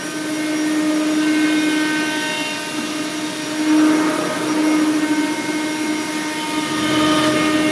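Omnitech CNC router running with a steady spindle whine over a hiss, cutting a sheet to size and trimming off the waste.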